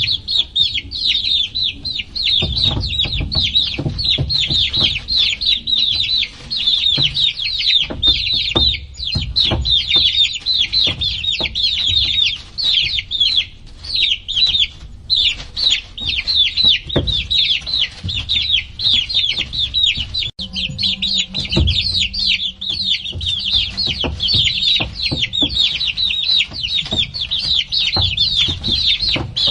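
A group of baby chicks peeping constantly, many short high downward-sliding peeps overlapping with no break. Low thumps and knocks run underneath, and a faint steady hum joins about two-thirds of the way through.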